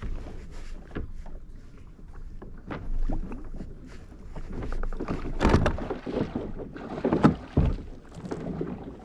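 Irregular knocks on a kayak's hull and splashing water, loudest about five and a half and seven seconds in, as a hooked tope shark tangled in the anchor line is worked alongside.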